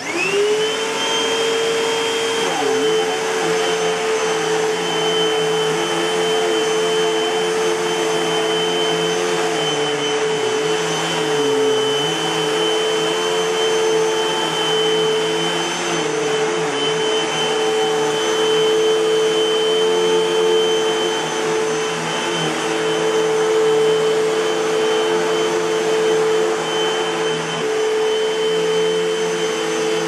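Hoover WindTunnel 2 Pet Rewind bagless upright vacuum cleaner switched on, its motor spinning up within about a second to a steady high whine over a rushing airflow. It then runs on steadily, with its lower hum dipping briefly in pitch a few times.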